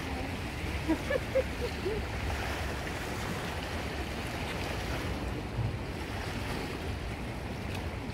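Sea waves washing against the rocky shore, a steady rush, with wind rumbling on the microphone. A few brief pitched sounds stand out about a second in.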